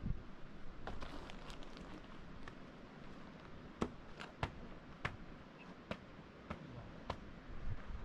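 A series of short, sharp clicks and knocks at irregular intervals, about a dozen, over a faint steady background hiss.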